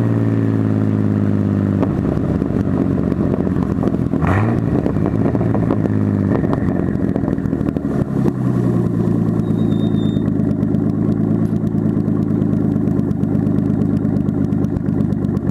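Datsun 280ZX's 2.8-litre straight-six engine, heard from outside the car, dropping in pitch as the car slows, with a short rise in revs about four seconds in, then settling into a steady idle from about eight seconds in.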